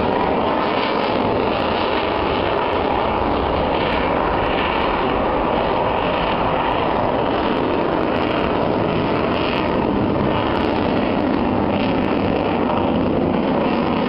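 Aircraft engine running, a dense noise that stays steady in level throughout.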